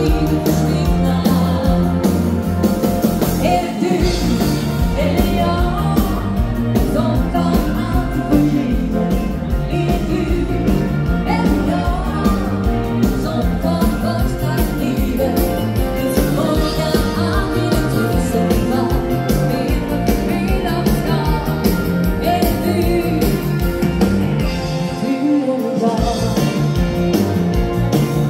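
Live dance band playing a song through the hall's PA: a woman singing lead over drums, keyboards and electric guitar, with a steady beat.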